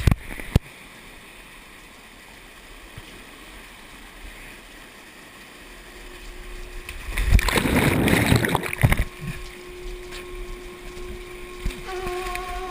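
Steady rushing of a mountain stream, with a louder surge of splashing water about seven seconds in, and a couple of sharp knocks at the very start. A few notes of music come in near the end.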